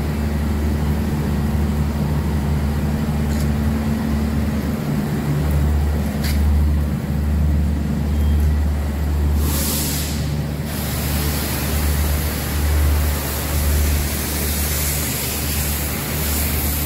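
Car-wash equipment: a low machine hum that swells and fades every second or so. A short burst of hissing water spray comes just before the middle, and steady spray hiss follows from about two-thirds of the way through as water is jetted at the car's underside.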